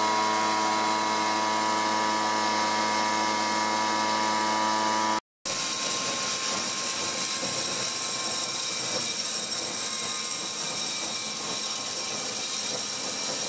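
Leaf blower running steadily at a constant pitch, driving air and wood pellets from a bucket through PVC pipe. About five seconds in the sound cuts out briefly and gives way to a steady, rougher rush with a high whine: air and pellets flowing through the corrugated hose into the fabric bulk bin.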